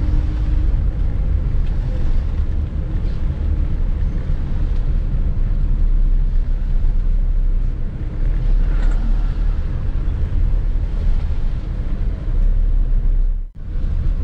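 Car driving along, a steady low engine and road rumble heard from on board. It breaks off for a moment near the end.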